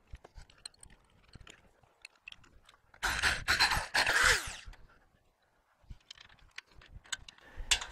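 Cordless drill boring out a bolt hole in a round steel trailer rail to half an inch: one short grinding scrape about three seconds in that lasts under two seconds. Light handling clicks come before and after it, and a sharp knock near the end.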